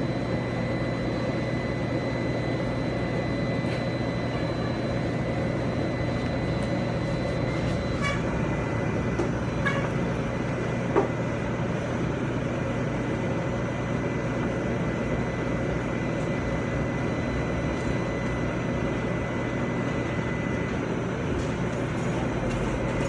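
Steady drone of a running vehicle engine, with a steady high whine over it that fades out in stages, and a single click about eleven seconds in.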